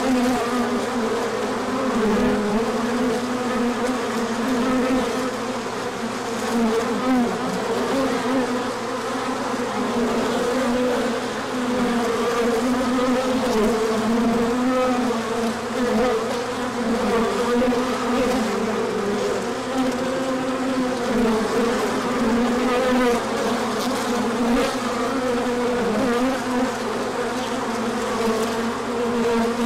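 Honey bees buzzing in numbers around the microphone: a steady, dense hum that wavers a little in pitch.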